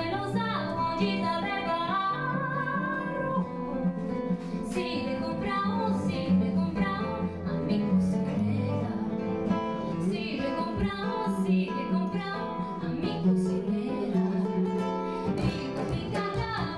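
Live acoustic music: a woman singing over a nylon-string classical guitar, with hand strikes on a cajón. The low guitar notes drop out near the end.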